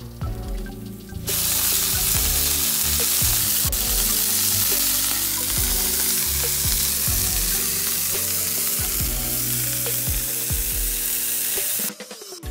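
Beef cubes searing in hot oil in a pan, a loud steady sizzle that starts suddenly about a second in and cuts off near the end. Background music plays underneath.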